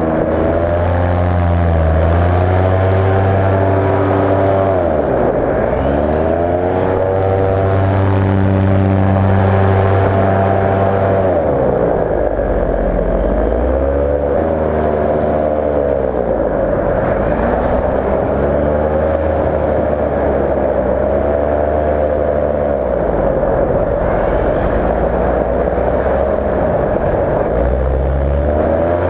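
Paramotor engine and propeller running close to the microphone, the pitch sagging and climbing back several times as the throttle is eased off and opened up again in flight.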